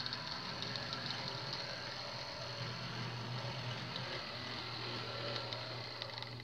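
Life-Like HO scale 0-4-0 saddle tank switcher running under load as it hauls a long train of freight cars: a steady motor and gear hum with light clicking from the wheels on the track.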